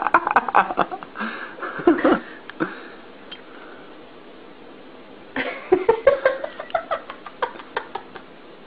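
People laughing in quick pulsing bursts: short bursts at the start and about two seconds in, then a longer run of laughter from about halfway through, with a quieter pause between.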